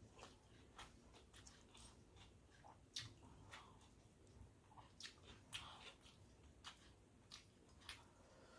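A person chewing food with the mouth close to the microphone: faint wet smacks and clicks at an irregular pace, a couple of them a little louder.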